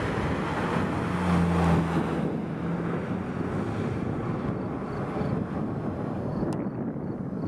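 Peugeot RCZ R's turbocharged 1.6-litre four-cylinder and tyres as the car passes close by and pulls away down the road: the sound peaks with a steady low engine note about one to two seconds in, then fades as the car recedes.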